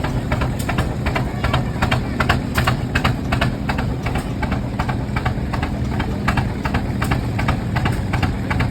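Rumely Oil Pull two-cylinder tractor engines running under a steady belt load. Their exhaust gives a slow, sharp, regular beat, about three a second, over a steady low hum.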